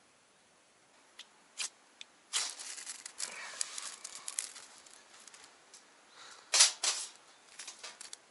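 Fire being lit and fed in a small folding metal fire stand: a few sharp clicks, then a couple of seconds of crackly scraping and rustling, then a cluster of louder sharp knocks about two-thirds in.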